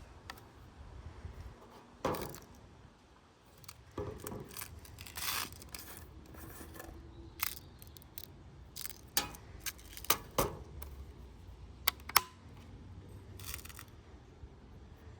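Metallic clicks and short scrapes from a Daisy Powerline 880 multi-pump air rifle being handled, with about a dozen separate sharp clicks. The loudest comes about 12 seconds in.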